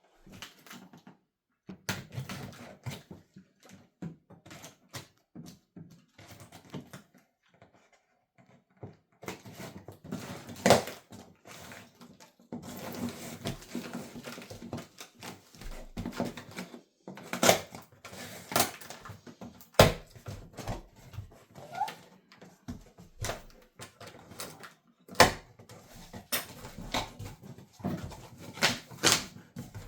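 Unboxing handling noise: irregular knocks, clicks and rustling of cardboard and packaging as a small wood lathe and its parts are unpacked, with a few sharper knocks along the way.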